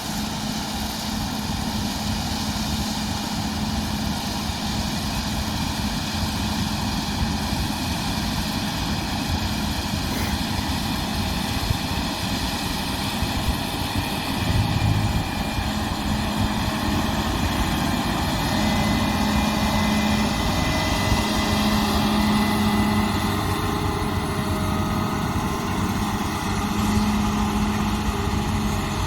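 Combine harvester running steadily: a diesel engine and machinery drone with steady high whining tones and a brief low thump about halfway.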